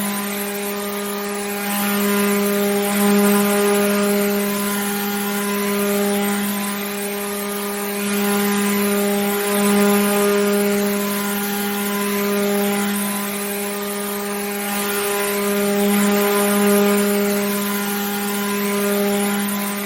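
Water pump running: a steady motor hum with a hiss of moving water over it, swelling and easing in loudness every six or seven seconds.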